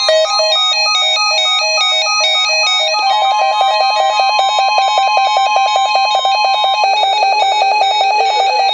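Weather radio alert alarm beeping in a fast, repeating electronic pattern that changes about three seconds in, over the NOAA Weather Radio's steady warning tone, which stops a couple of seconds before the end.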